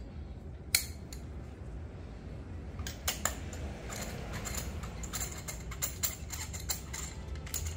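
Rapid metallic clicking of a 3/8-inch ratchet working a 5/8-inch spark plug socket on an extension to loosen a spark plug, with the tools clinking in the plug well. A lone click comes early, then quick runs of ticks from about three seconds in, over a low steady hum.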